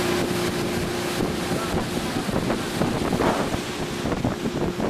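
Motorboat under way across a lake: wind buffeting the microphone and water rushing past, over a steady engine hum.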